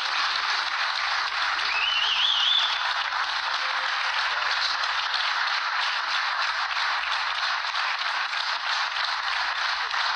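Studio audience applauding steadily after a spoken-word poem, with a brief high warbling sound rising over the clapping about two seconds in.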